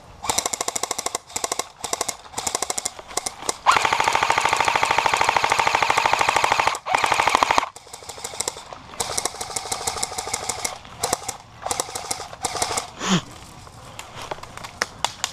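Airsoft guns firing in rapid full-auto bursts, a fast even rattle of shots, with one long burst of about three seconds in the middle and shorter bursts before and after.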